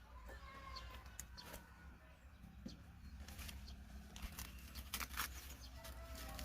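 Faint, scattered snaps, clicks and rustling from plant material being handled, torn or cut by hand.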